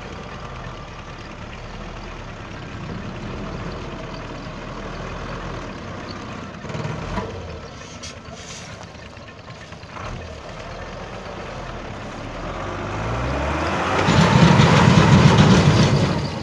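Diesel dump truck engine running under load as the truck works through mud. It revs up from about twelve seconds in to a loud full-throttle run near the end, then drops back.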